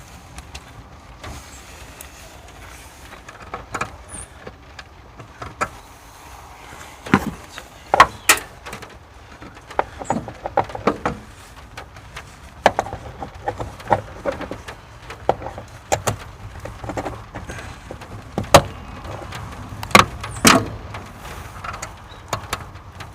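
Irregular clicks and knocks of hand tools working a battery cable and its replacement terminal clamp, with a few sharper, louder knocks in the second half.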